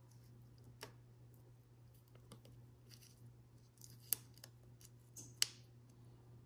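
Small glass mosaic tiles clicking and tapping against each other and the tray as they are set and nudged into place: a few light, scattered clicks, with two sharper ones in the second half.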